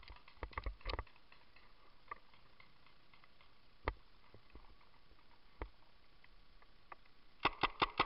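Scattered single sharp paintball shots, then near the end a rapid string of paintball marker shots, about six a second, fired close by.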